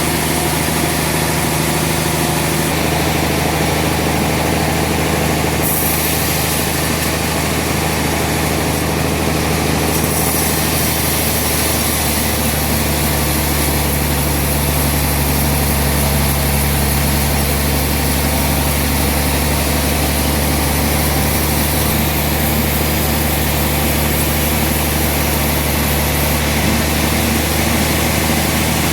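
Sawmill machinery sawing a trembesi (rain tree) log: a steady low engine hum under a constant bright hiss of the cut, the hiss growing and easing a few times as the cut goes on.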